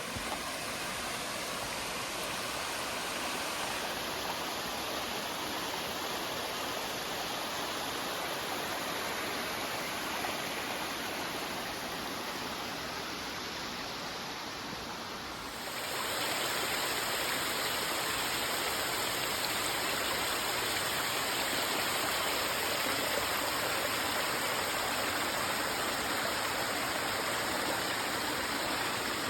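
Steady rushing of a woodland brook, growing suddenly louder and fuller a little past halfway, where it becomes the rush of Hatchbrook Waterfall.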